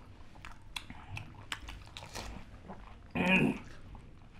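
Pani puri being bitten and chewed: crisp, hollow puris filled with spiced water crack and crunch in the mouth, with scattered sharp crackles. About three seconds in, a man's voice cuts in loudly for under half a second.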